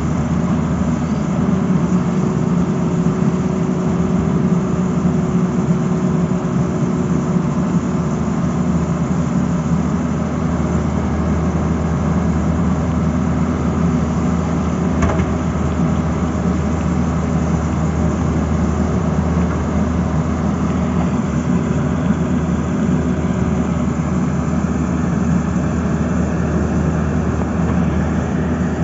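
Tata Hitachi tracked excavator's diesel engine running steadily as the machine digs, a low drone with a thin steady tone over it. A single short knock sounds about halfway through.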